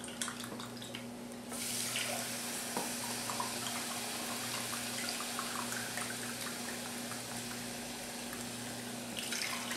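Chicken stock pouring in a steady stream from a carton into a saucepan of coarse cornmeal, louder from about a second and a half in.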